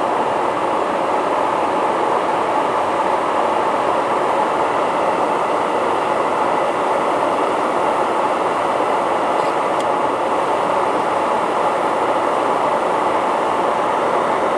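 Steady rushing noise of airflow and jet engines heard inside a KC-135 tanker in flight, from the boom operator's position during air refueling.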